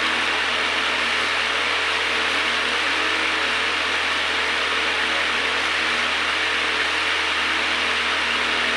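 Steady, unchanging rushing noise with a faint low hum beneath it.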